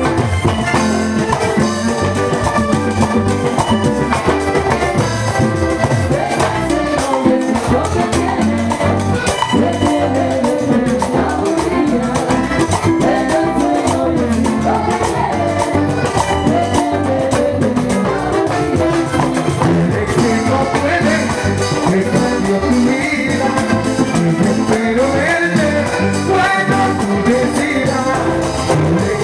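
Live vallenato band playing: button accordion carrying the melody over the rasp of a metal guacharaca, with bass and drums and a sung vocal line at times.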